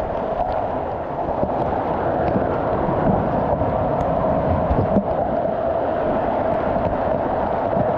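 Steady rushing of falling water from a mountain-stream waterfall, with a low, uneven rumble underneath.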